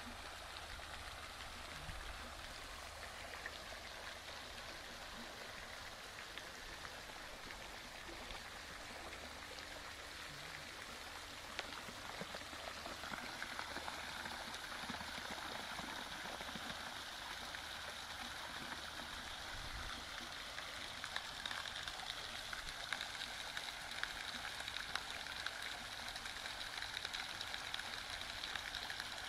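Steady rushing and pattering of water, growing a little louder about halfway through.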